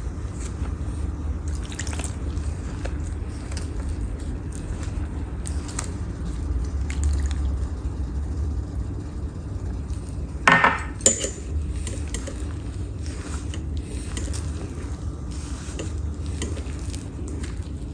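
Hands working flour and yeast water together into a dough in a stainless steel bowl: faint scraping and squishing over a steady low hum, with two sharp clinks near the middle.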